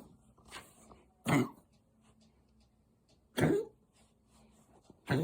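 A pet animal coughing: three short coughs about two seconds apart, the last at the very end.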